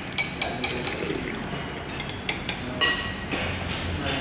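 Tableware clinking: several sharp clinks with a short ring, a cluster in the first second and more about two and three seconds in, over a steady background hum.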